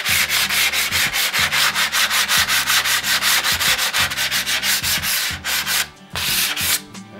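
A 70-grit diamond resin hand pad rubbed fast along the cut edge of a natural stone tile, about five rasping strokes a second, grinding a bevel onto the edge. It pauses briefly near the end, gives a last short burst, then stops.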